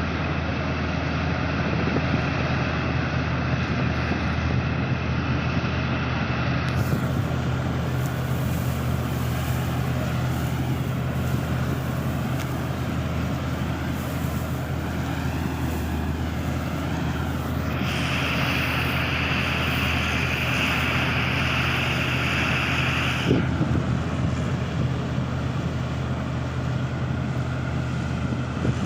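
Wheat-harvesting machine running steadily, its engine giving a constant low hum under the noise of the harvesting. A higher whine grows louder for a few seconds past the middle, then drops back.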